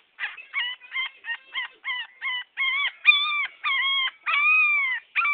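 Young puppy howling: a rapid run of high yips that stretch into longer, drawn-out howls toward the end.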